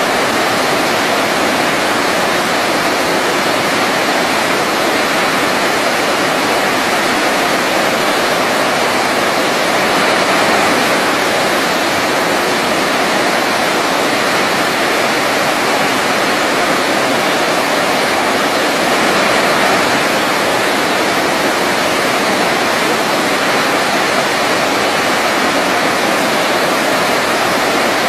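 Waterfall rushing steadily: an even, unbroken hiss of falling water with no pauses or changes.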